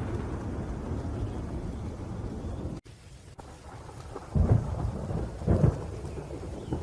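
Thunderstorm recording: rain and a steady low rumble of thunder, which cuts out abruptly a little under halfway through, as at a splice in the recording. Two loud thunder rumbles follow, about a second apart.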